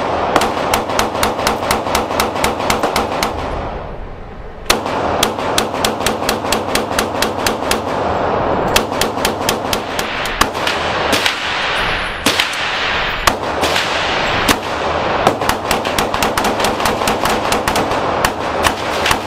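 Semi-automatic handgun fired in rapid strings of shots, several a second, each shot ringing out in the echo of an indoor range. A short pause about three and a half seconds in, then a long run of steady rapid fire.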